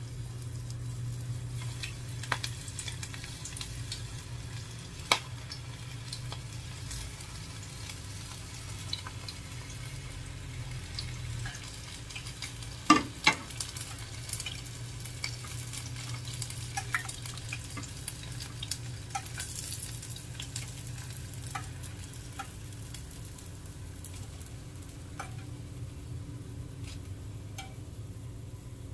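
Breaded onion rings deep-frying in hot oil in a small stainless steel saucepan: a steady sizzle. Metal tongs click and tap against the pan now and then, with one sharp clack about five seconds in and two more close together near the middle.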